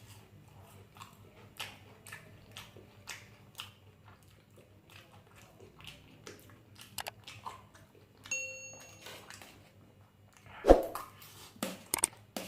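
Close-up chewing and biting of food, a string of quick wet mouth clicks and smacks. About 8 s in, a short ringing chime sounds, and a loud thump comes near 11 s.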